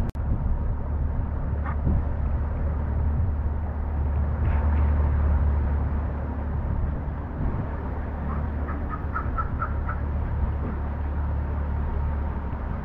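Pontoon boat's outboard motor running with a steady low hum. About two-thirds of the way through, a bird calls a quick run of short notes.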